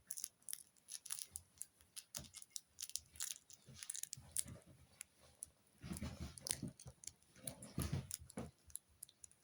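Italian Greyhound puppy chewing and gnawing on something: a run of irregular small crunches and clicks, with thicker, lower stretches of gnawing from about six seconds in.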